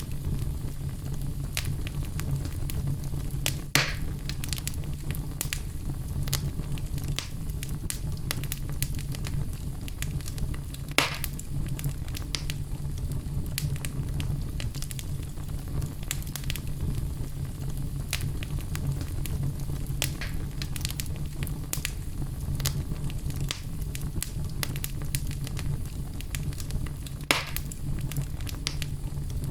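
Fireplace fire crackling: a steady low rumble under many small pops and snaps, with three louder pops, one about four seconds in, one around eleven seconds and one near the end.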